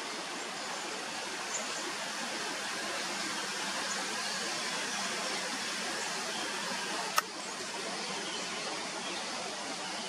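Steady outdoor background hiss with no distinct source, and a single sharp click about seven seconds in.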